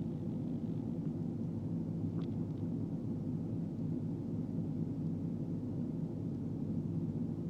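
Manitowoc 2250 crawler crane's diesel engine running steadily, a constant low drone heard from inside the operator's cab.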